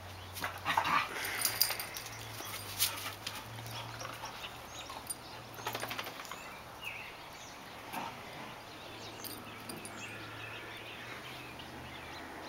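Dogs at play: a few short dog sounds mixed with scattered clicks and scuffles, busiest in the first few seconds.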